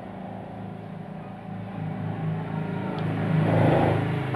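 A low, steady engine or motor hum that swells near the end and then eases, with a single sharp click about three seconds in.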